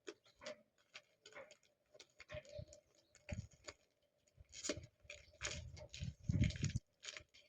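Product packets being handled and set down while they are counted: light clicks, taps and rustling of packaging, with a run of dull bumps a little before the end.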